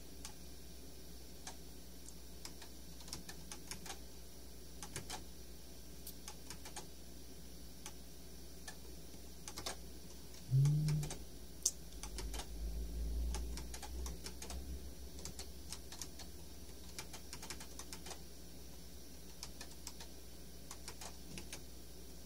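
Scattered light clicks from operating a computer's keys or buttons, over a steady faint low hum. About ten seconds in there is a brief low pitched sound, then a soft low rumble for a couple of seconds.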